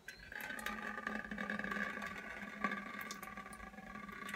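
Black iced coffee pouring in a steady stream from a plastic cup onto a woven-fabric flat and splashing into a bowl beneath, with ice cubes clicking against the cup. The pour starts abruptly.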